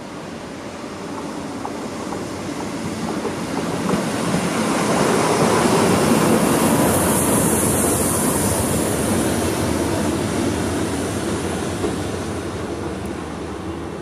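Train running on rails, swelling over a few seconds to its loudest about halfway through, with a high hiss at the peak, then slowly fading.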